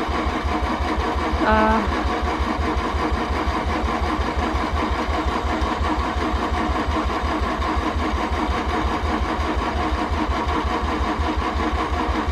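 Mazda RX-7 rotary engine cranking steadily on its starter in a fast, even rhythm without catching, after sitting with old gas and being given fresh fuel.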